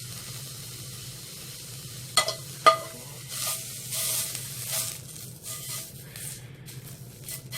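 Beef fat sizzling as it is rubbed over a hot frying pan to grease it, with two sharp metallic clicks a little past two seconds in, then several louder surges of sizzling.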